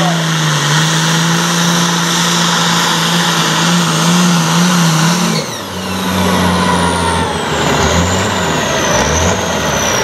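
Diesel engine of an International super farm pulling tractor at full throttle under load, dragging the weight-transfer sled, with a high whine over the engine note. About halfway through, the engine note breaks and drops lower with a brief dip in loudness, and the whine slowly falls in pitch.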